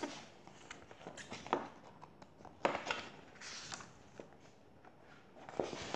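A picture book's paper page being turned and the book handled: faint scattered rustles and soft taps.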